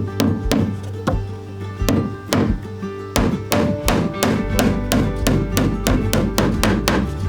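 Background music with quickly plucked and strummed guitar notes over a held bass.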